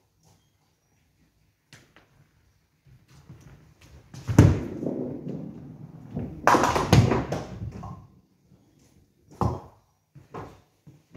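A ninepin bowling ball thuds down onto the lane about four seconds in and rolls with a rumble. About two seconds later it hits the pins with a loud clatter. A few short knocks follow near the end.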